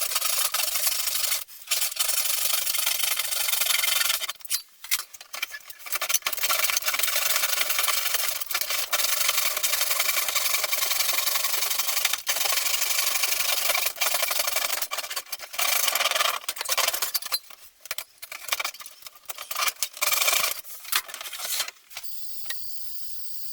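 Continuous rasping and rubbing of a hand tool working a surface, such as filing or sanding, broken by a few short pauses and stopping shortly before the end.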